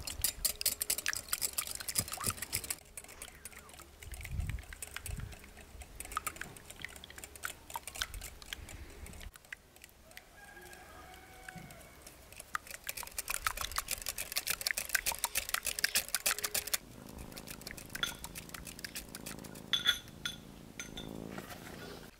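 Wire whisk beating eggs in a glass bowl: rapid, dense clinking of the metal wires against the glass, in two long spells with lighter taps between. Near the end the clinking stops and a softer, lower sound takes over.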